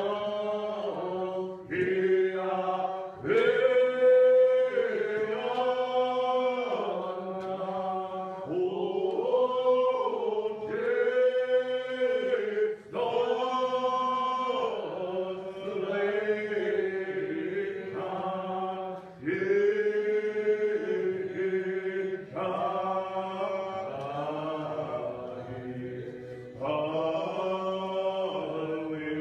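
Church congregation singing a Muscogee Creek language hymn. Voices hold long notes in phrases of a few seconds each, with short breaks between phrases.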